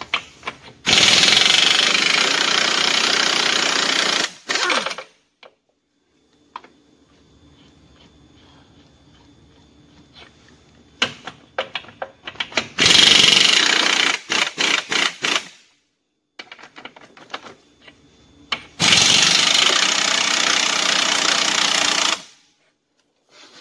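Impact wrench hammering on the wheel nuts of a bus's rear wheel, loosening them. It runs in three long bursts of three to four seconds each, with a cluster of short blips around the second.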